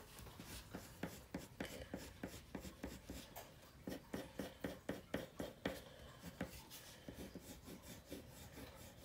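Coloured pencil scratching on paper in short back-and-forth cross-hatching strokes, about three a second, growing fainter near the end.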